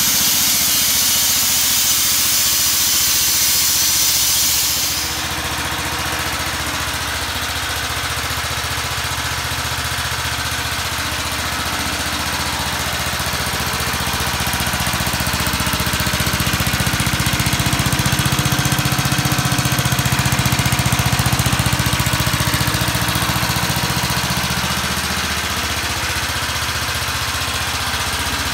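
Lawnmower's 3.5 hp flathead single-cylinder engine running steadily, a little louder through the middle stretch. A steady hiss sits over it for the first five seconds and cuts off suddenly.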